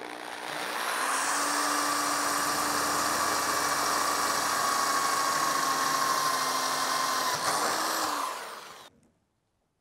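Electric drill spinning up and drilling a hole upward into the underside of the car's front body, running steadily for about eight seconds with its pitch sagging slightly under load, then winding down and stopping about nine seconds in.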